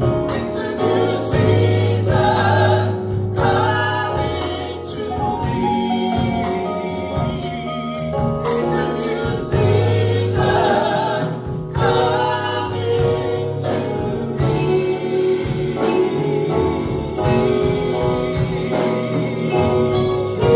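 Live gospel praise band playing: men's and women's voices singing together in harmony over a drum kit, keyboard and guitar, with a strong steady beat.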